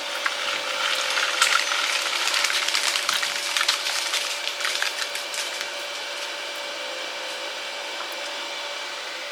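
Electric arc welding: an irregular crackle over a steady machine hum and hiss. The crackling stops about five and a half seconds in, leaving the hum.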